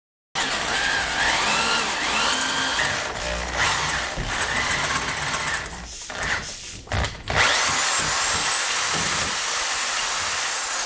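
Power drill with a 1-inch Forstner bit boring a deep hole through a wooden handle. The motor whine rises and falls as the bit bites, stops briefly a few times around the middle, then spins up again and runs at a steady high pitch near the end.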